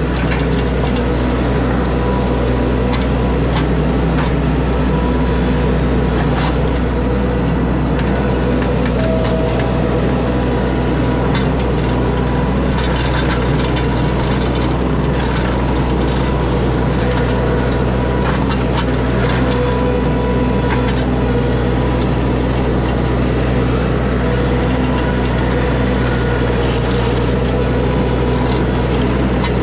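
Engine of a piece of compact heavy equipment running steadily under work, with scattered knocks and cracks through it.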